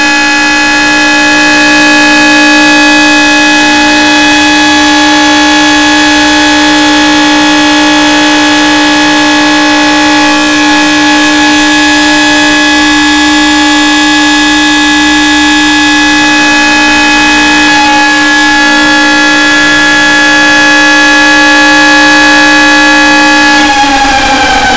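Outdoor tornado warning siren sounding loud and steady at one pitch, then beginning to wind down, its pitch falling, near the end.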